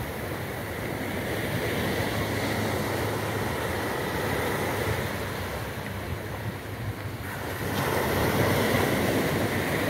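Small surf breaking and washing up a sandy beach, a steady rush of water that swells louder about three-quarters of the way through as a wave breaks at the shore.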